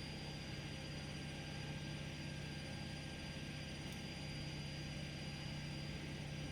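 Steady low electrical hum with a faint high whine and hiss: room tone, with no distinct sound from the lock.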